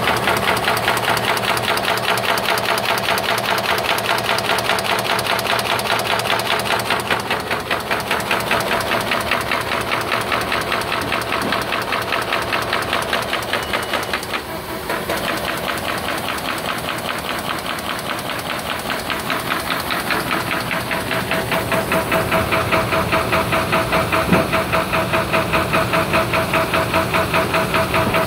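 Horizon AFC-566FG automated paper folder running in production, feeding and folding sheets with a fast, even clatter, many strokes a second.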